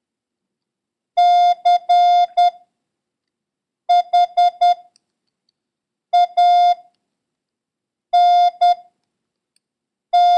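Morse code practice tones sending the word 'change': a single steady beep keyed in dits and dahs, one letter every two seconds or so with long silent gaps between letters. C (dah-dit-dah-dit), H (four dits), A (dit-dah) and N (dah-dit) sound in turn, and G (dah-dah-dit) starts near the end.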